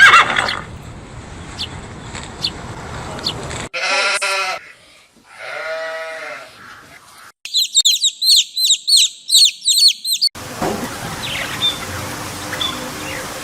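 A run of separate animal recordings joined by hard cuts. A loud call opens it, then two long sheep bleats come about four and six seconds in. After them comes a burst of rapid high-pitched bird chirping, then a noisy outdoor recording with faint chirps.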